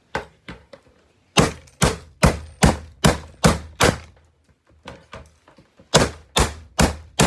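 Hammer blows on an old alarm clock: a fast run of seven hard strikes at about two a second, a brief pause with a few lighter knocks, then four more hard strikes near the end.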